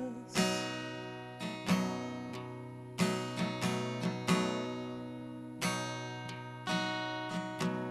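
Solo acoustic guitar playing a slow passage: strummed chords struck roughly once a second and left to ring out and fade, with no singing.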